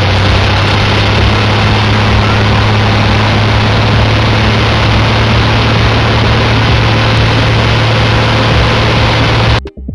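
Aircraft engine running steadily: a loud rushing noise over an even low drone, which cuts off abruptly near the end.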